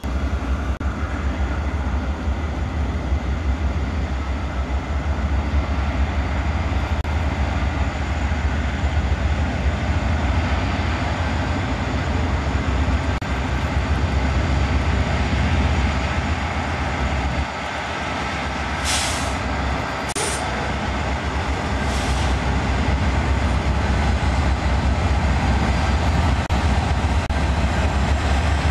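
BNSF diesel locomotives hauling a double-stack container train, with a steady heavy engine rumble and the noise of the train on the rails as it approaches and passes. A few brief high-pitched squeaks come about two-thirds of the way through.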